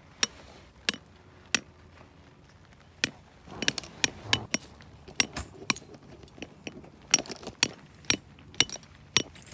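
Hammer driving a tent peg into the ground: a dozen or more sharp, clinking strikes at uneven intervals, some coming in quicker runs.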